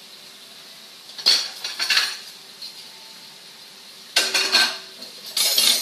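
Dishes and cutlery clattering in three loud bouts, about a second in, past the four-second mark and near the end, over a faint steady sizzle of pans frying on the stove.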